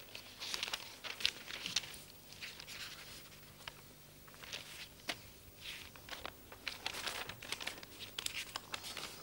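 Fanfold continuous-form computer printout paper rustling and crinkling as it is leafed through, in short irregular crackles, over a faint low steady hum.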